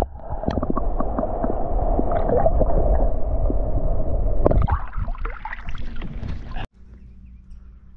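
Muffled water noise from a camera held underwater, with gurgling and small knocks on the housing. About four and a half seconds in it turns to splashing as the camera comes up through the surface, then cuts off suddenly.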